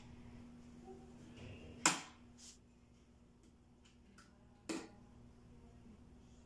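Two sharp clicks of a wall light switch and a 15 A miniature circuit breaker being flipped, about three seconds apart, the first the louder, over a faint low hum.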